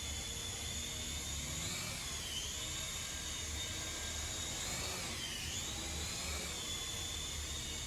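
Toy RC helicopter's small electric rotor motors running with a steady high-pitched whine, the pitch dipping and recovering twice, about two seconds in and again about five seconds in.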